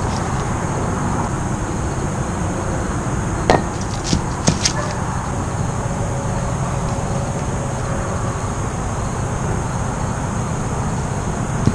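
Wooden kubb pieces knocking together: one sharp clack about three and a half seconds in, then three lighter clacks within the next second, over a steady hum of distant traffic.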